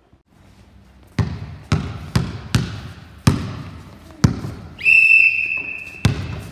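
A basketball bouncing on a sports-hall floor, about seven irregular bounces that echo in the hall, starting about a second in. Near the two-thirds mark a single high, steady whistle blast lasts about a second and is the loudest sound.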